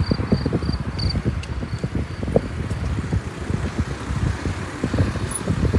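Wind buffeting the microphone and tyre rumble from a mountain bike being ridden along a paved path, a steady irregular low rumble. A faint run of short high chirps, about three a second, fades out in the first half.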